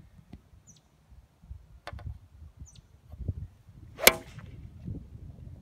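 A 7-iron striking a golf ball off turf during a full swing: one sharp crack about four seconds in, with brief ringing after it.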